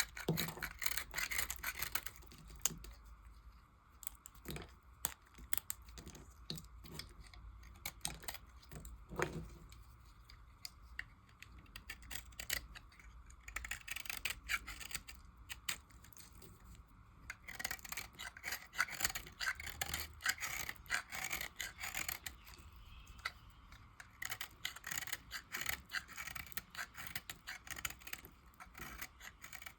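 A blade cutting and carving dry bar soap: clusters of crisp crackling, crunching strokes, with sharp single clicks between them.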